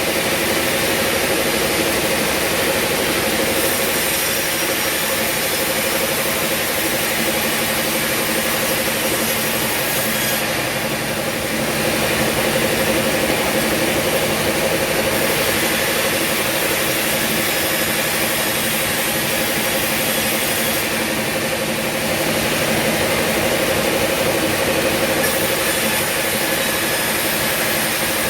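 Sawmill machinery running steadily: a constant engine or motor drone with a high hiss that swells and eases a few times.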